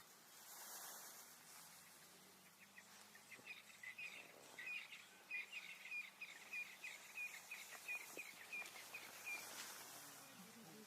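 A bird calling faintly in a fast run of short repeated chirps, about four a second, starting about three seconds in and stopping near the end, over a faint outdoor hiss.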